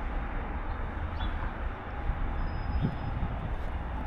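Steady outdoor city background noise, a continuous low rumble with no distinct events.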